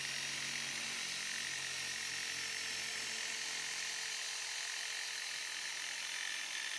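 Corded electric drill running with a foam polishing pad pressed against a plastic headlight lens: a steady, high-pitched motor whine.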